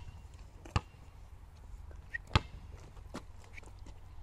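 A basketball being dribbled on an asphalt court: a few sharp bounces, spaced irregularly about a second apart, the loudest a little past the middle.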